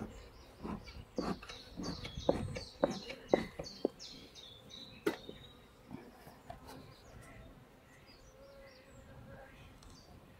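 Bee smoker bellows squeezed again and again, a quick run of puffs over the first five seconds or so as smoke is blown over the hive frames. Birds chirp faintly in the background.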